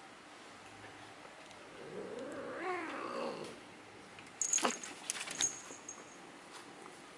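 A long-haired cat gives one drawn-out, wavering meow while being brushed. About four and a half seconds in there is a short burst of clicks and metallic jingling as the cat gets up.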